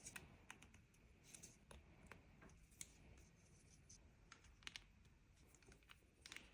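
Faint, irregular clicks and light clatter of plastic LEGO bricks being handled and pressed together.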